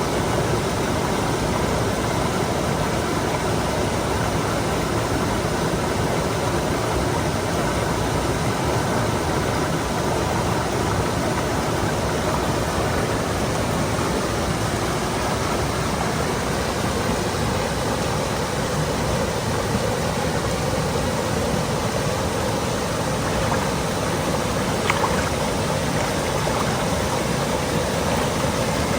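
Mountain stream running steadily over rocks, a continuous even rush of water.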